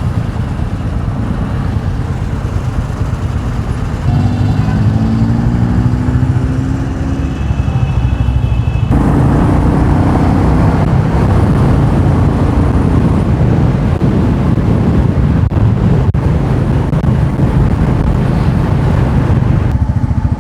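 Royal Enfield Meteor 350's single-cylinder engine running under way, heard with strong wind noise on a helmet-mounted camera microphone. The engine note climbs as the bike accelerates about four seconds in, and the wind rush grows louder about nine seconds in.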